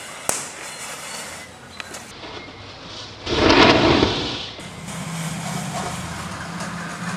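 Burning matchsticks with a sharp pop near the start, then a Diwali firecracker going off as a loud rushing hiss of sparks for about a second and a half. A steady low hum follows.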